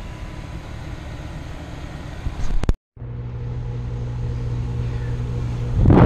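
Steady outdoor noise, then a brief dropout about three seconds in, followed by the steady electrical hum of a package air-conditioning unit running with its compressor on after a blown fuse.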